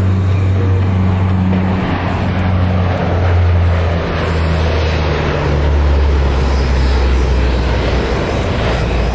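Lockheed C-130 Hercules flying past low, its four Allison T56 turboprop engines and propellers giving a loud, steady drone. The low drone drops in pitch around the middle of the pass.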